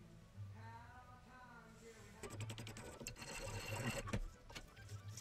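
Flat metal hand file scraping against a carved wooden lure body in quick back-and-forth strokes, starting about two seconds in, shaping the bait.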